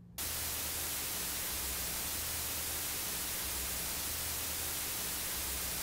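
Noise floor of an APS Aeon 2 studio monitor speaker with no signal playing, picked up close by a microphone: a steady hiss with a faint low mains hum underneath.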